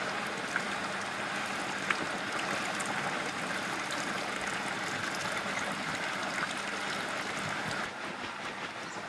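Steady rush of water with a few small clicks as soaked urad dal is washed by hand, rubbed between the palms to loosen its husks. The water sound eases off about eight seconds in.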